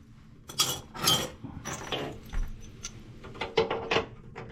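Metal plumbing fittings clinking and rattling as they are handled: a few sharp clinks in the first two seconds, then lighter ticks near the end.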